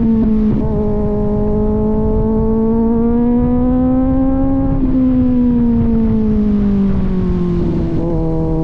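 Kawasaki Z900's inline-four engine through an AR aftermarket exhaust while riding. The exhaust note climbs gradually for about four seconds, then falls away, with brief breaks about half a second in and again near the end, over a low rumble of wind.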